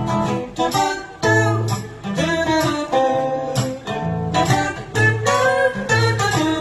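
Music: an instrumental passage of a song, with acoustic guitar strumming chords, each new chord struck about every half second to second.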